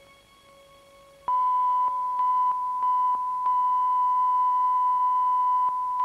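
The tail of the music fades to near silence, then about a second in a loud steady electronic beep tone switches on and holds, with a second, higher tone clicking on and off over it several times.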